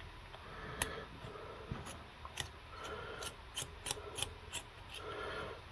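Small hand screwdriver with a Torx T8 bit turning a knife's pivot screw: faint, irregular metal clicks, about a dozen, over light scraping as the bit works the screw loose.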